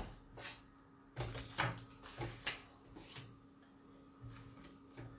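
Scattered knocks and clunks from a manual die-cutting machine being loaded and cranked with a metal cutting die, with short low rumbles between them and a faint steady hum underneath.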